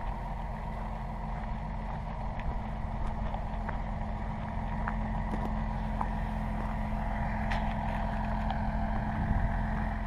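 Kawasaki ZZR1100's inline-four engine running steadily at low speed, with scattered small crackles of gravel under the tyres.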